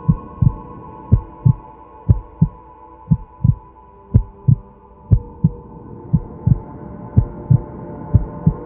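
Heartbeat sound effect: a steady lub-dub, a pair of low thumps about once a second, over a sustained droning hum.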